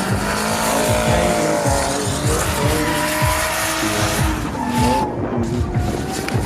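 Drift car sliding, its engine revving up and down and its tyres squealing, over background music with a steady beat.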